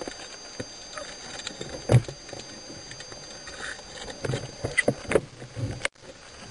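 Irregular knocks and clicks picked up underwater, with a louder knock about two seconds in and a flurry of them later; a faint steady high tone runs underneath, and the sound cuts out for a moment near the end.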